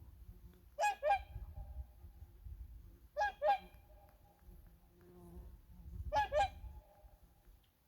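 Swans calling: three loud double honks a few seconds apart, over a low rumble.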